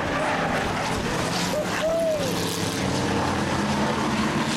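Several Bomber-class stock cars racing around a short oval track, their engines running together in a steady drone. About two seconds in, a brief tone rises and falls.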